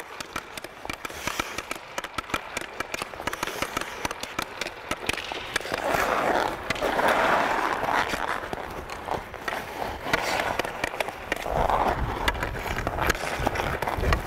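A hockey stick blade clicking rapidly against the puck in tight stickhandling, then ice skate blades carving and scraping across the ice, loudest about six to eight seconds in.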